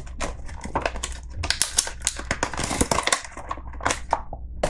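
Clear plastic packaging bag crinkling and crackling as it is handled and opened, a fast irregular run of sharp crackles.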